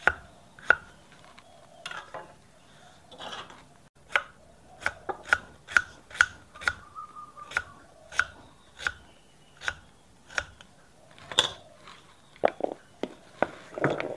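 Large kitchen knife dicing fresh daikon radish on a thick round wooden chopping block: a run of sharp knocks as the blade cuts through and meets the wood, about one to two a second with short pauses.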